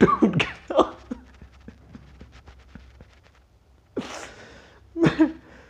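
A man crying in an acted sob: short, broken voiced sobs in the first second, then quieter catching breaths with small clicks, a sharp breath about four seconds in, and another short sob near the end.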